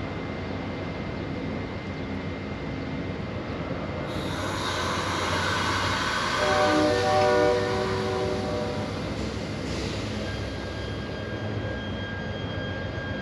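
Amtrak Superliner bi-level passenger cars rolling slowly past, with a steady rumble and clatter of wheels on rail. About halfway through, a train horn sounds a multi-tone chord for a couple of seconds over a rise in high-pitched wheel and rail noise.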